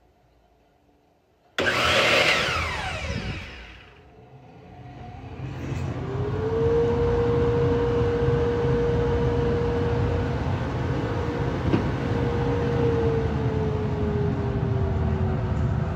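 A Bosch 12-inch glide miter saw's motor is switched on about a second and a half in, then winds down with a falling whine. About five seconds in, the shop dust collector is switched on automatically by the iVac Pro Switch after the saw's current is sensed: it spins up to a steady hum with a held tone, then is switched off and its tone sinks as it starts to spin down near the end.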